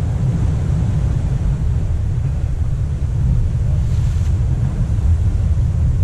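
Wind buffeting the microphone in a steady low rumble, over the hiss of surf washing against rocks.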